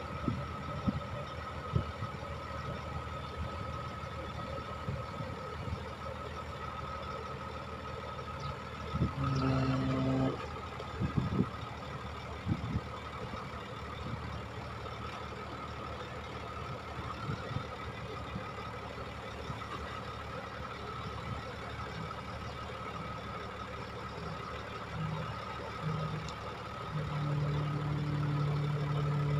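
Loaded dump truck's diesel engine running steadily while its hydraulic hoist slowly tips the sand-filled bed, with a steady high whine over the engine note. A brief pitched tone sounds about nine seconds in, and near the end a louder steady low drone comes in.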